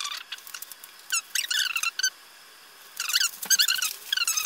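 Plastic stretch wrap on a cardboard box squeaking as it is pulled and peeled off by hand, in short bursts of high squeaks, with a quiet pause in the middle.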